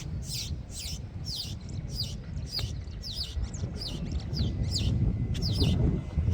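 A bird calling over and over, short high chirps that sweep downward, about two a second, over a low rumble.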